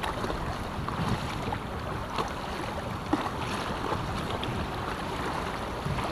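Wind noise on the microphone over the steady wash of choppy river water against an inflatable stand-up paddleboard, with a few small splashes from paddle strokes.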